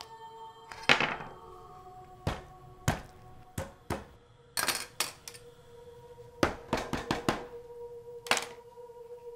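A large kitchen knife chopping down on raw meat on a wooden cutting board: about a dozen sharp, irregularly spaced thunks. A held music drone sounds under them.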